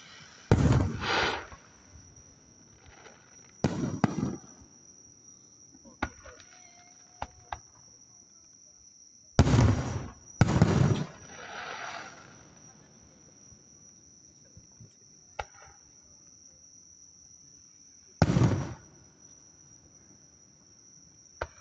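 Aerial fireworks shells bursting: a pair of booms near the start, one about four seconds in, a loud pair around ten seconds in trailing off into crackle, and one more near the end, with single sharp cracks in between. A steady high-pitched insect trill sounds underneath.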